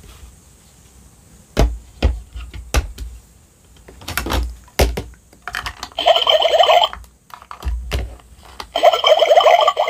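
Hard plastic toy dishes clicking and knocking against a plastic toy sink, several separate knocks. Then a small battery-powered pump in a duck-shaped toy water dispenser whirs twice, the second run longer.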